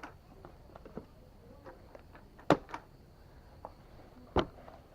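Yamaha Exciter 150 motorbike seat being pressed and worked by hand to test it, with two sharp knocks about two seconds apart and faint clicks between. The seat's clacking rattle is gone, cured by fitting washers under it.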